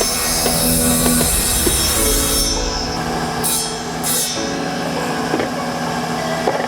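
Electric power saw cutting wood, the blade's high screech easing off briefly in the middle before biting again.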